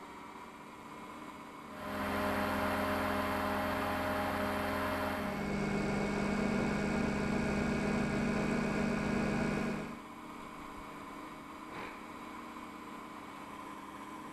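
Electric RC helicopter (Align T-Rex 500E) running with its rotor turning: a steady motor and gear whine, loud from about two seconds in, dropping to a lower tone about five seconds in, and falling back to a faint hum near ten seconds.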